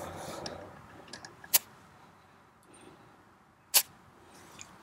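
Two short hisses of air at a compact tractor's rear tire valve as a dial pressure gauge is pressed on to read the tire pressure, about a second and a half and nearly four seconds in. Faint clicks come from handling the gauge.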